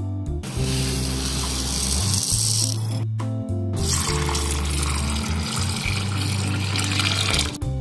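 Tap water pouring into a glass bowl of green moong and masoor dal to rinse them, running in two spells with a short break about three seconds in. Steady background music plays throughout.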